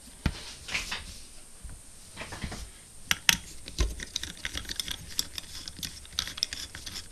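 Small precision screwdriver working screws on an opened hard disk drive's metal chassis: a run of irregular light metal clicks and scrapes, with a duller knock a little before four seconds in.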